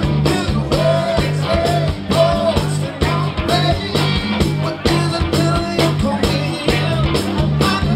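A band playing live: electric guitars, bass and drums keeping a steady beat, with a man singing over them.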